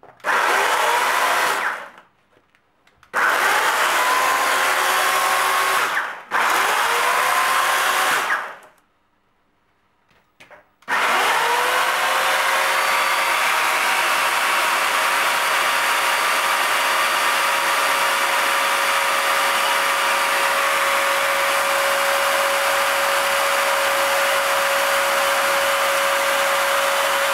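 Corded electric chainsaw switched on three times in short runs, its motor whine rising as it spins up each time and stopping between runs. It is then switched on again and runs steadily at full speed with a constant whine.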